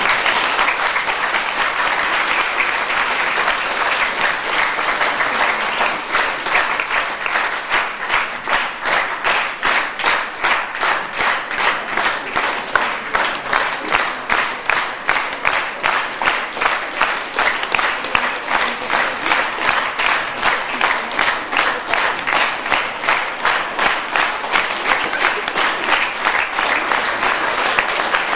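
A hall full of schoolchildren and adults applauding. A dense wash of clapping settles after about six seconds into rhythmic clapping in unison, with a steady beat of roughly three claps a second.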